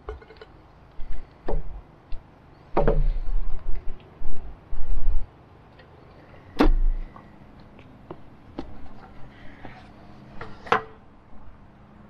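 Metal tongs clicking and scraping against the grate of a portable propane grill and a plate as grilled chicken is lifted off, then the grill's lid clanks shut about six and a half seconds in, the loudest knock. A few lighter clinks follow, one sharp one near the end.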